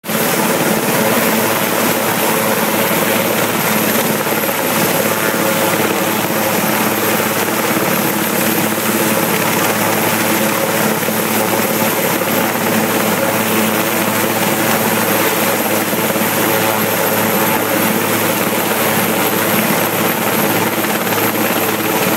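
Rescue helicopter running loudly and steadily, its rotor and engine drone holding at an even pitch.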